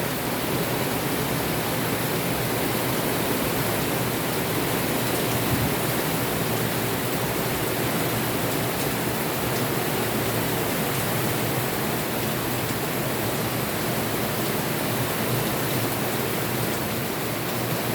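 Steady, even hiss of heavy rain with no distinct drops or pauses.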